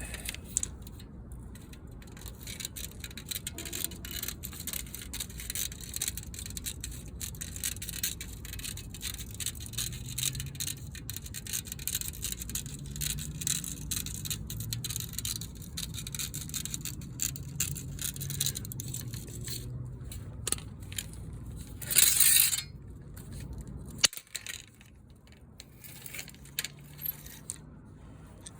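Window screen mesh being trimmed and worked in its frame: a dense run of small scratches and clicks, with a louder burst of rustling noise about 22 seconds in.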